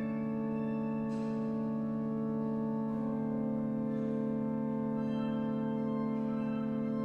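Pipe organ holding sustained chords, the harmony shifting about three seconds in.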